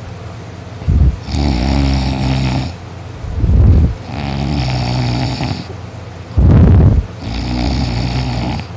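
A drunk, deeply asleep adult man snoring loudly. The snores come in a cycle of about three seconds: a short, very loud deep snort, then a longer pitched, vibrating snore, three times over.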